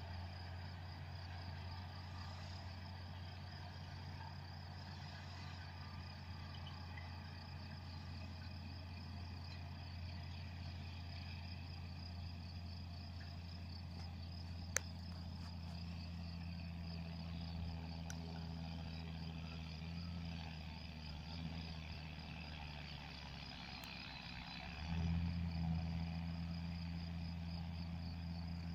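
John Deere 6620 tractor pulling a Rolland round baler, heard from a distance as a faint steady low engine drone that grows louder about 25 seconds in as the machine comes nearer. One sharp click about halfway through, over a steady high chirring.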